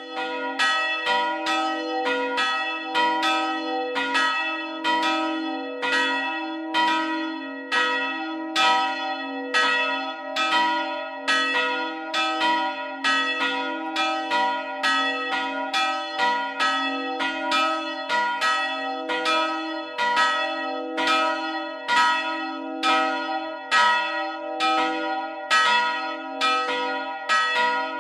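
Church bells ringing: a steady run of strokes, about one and a half a second, from at least two bells of different pitch, each stroke ringing on into the next.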